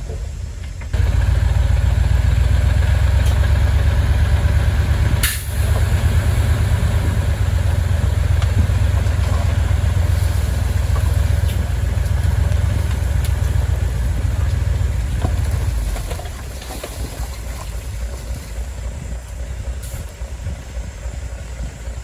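Heavy diesel engine of earthmoving machinery running with a deep, steady note. It jumps up in loudness about a second in, a sharp knock cuts through about five seconds in, and it drops back to a quieter level near sixteen seconds.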